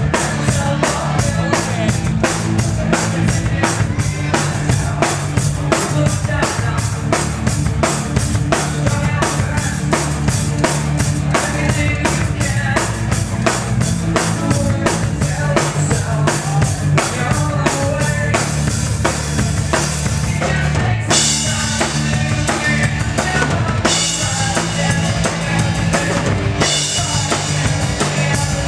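Live rock band playing loudly: a drum kit drives a fast, steady beat of about four hits a second under electric guitars and bass. Cymbal crashes come in and brighten the sound in the last third.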